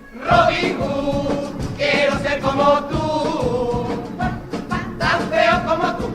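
Carnival chirigota music: a group singing in chorus over a steady drum beat, coming in sharply about a third of a second in.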